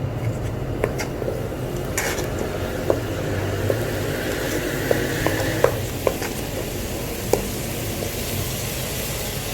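Metal spoon stirring spiced tomato-onion masala in a karahi as it fries, with irregular clinks of the spoon against the pan over a steady sizzle and a low hum.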